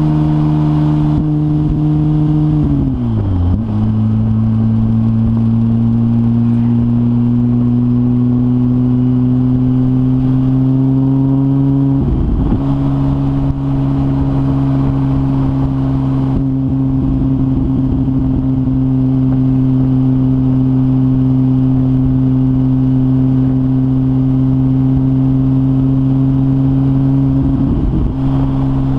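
Porsche 996 Turbo's flat-six engine with a decat Kline 70mm X stainless exhaust, droning at steady moderate revs. The revs drop sharply about three seconds in, then climb slowly and hold steady, with brief rough breaks in the note about twelve seconds in and near the end.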